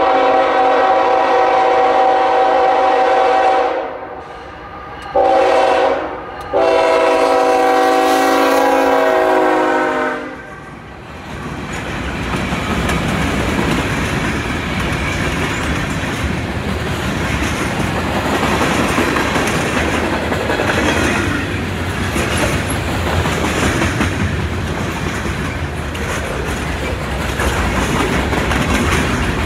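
Norfolk Southern freight locomotive horn sounding a long blast, a short blast and another long blast, the close of the standard long-long-short-long grade-crossing signal. After that the train passes close by, with a steady loud rumble and clatter of freight car wheels on the rails.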